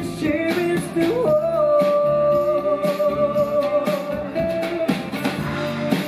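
A woman singing live over a drum kit beat, holding one long note from about a second in until about four seconds in.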